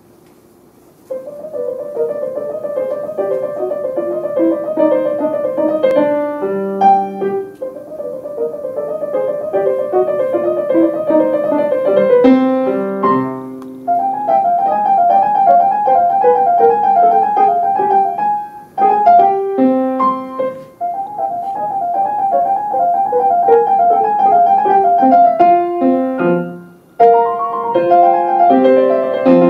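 Steinway & Sons grand piano played solo, starting about a second in: runs of quick repeated high notes over descending lower lines, broken by a few short pauses between phrases.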